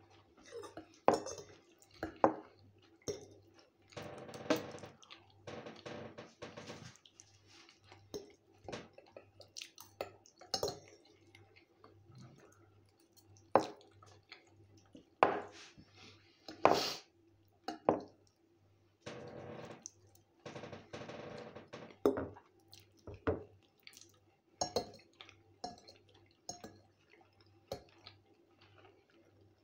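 Metal fork clinking and scraping on a ceramic plate at irregular intervals as fried potatoes and egg are scooped up, between stretches of close-up chewing.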